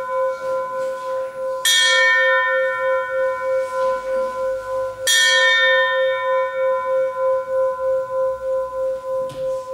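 A small brass wall-mounted bell struck twice, about two and five seconds in. Each stroke rings on and slowly fades with a pulsing, wavering hum.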